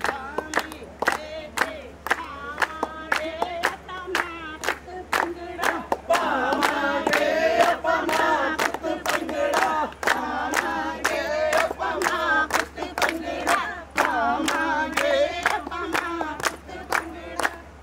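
A group of voices singing a Punjabi folk song together over a steady beat of about three sharp strokes a second; the singing grows louder and fuller from about six seconds in. A low steady hum runs underneath.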